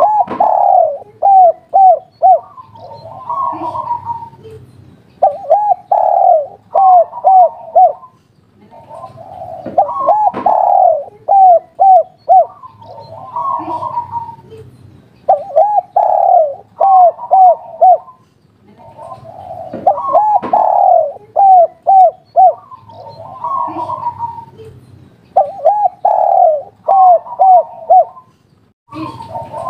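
A spotted dove singing its 'kuk 3' cooing song: each phrase is a longer coo followed by a quick run of short, evenly spaced coos, repeated about every five seconds.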